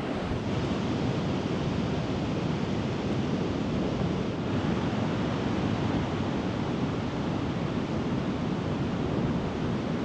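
Waves breaking on the shore with wind buffeting the microphone, a steady, unbroken wash of noise.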